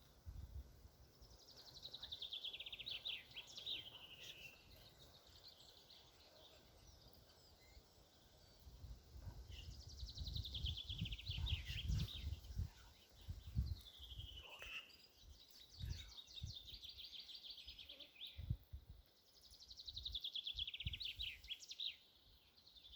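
A songbird singing a repeated song: a fast trill about two seconds long that falls in pitch, sung four times with pauses between. Low rumbling and a few soft knocks sit underneath.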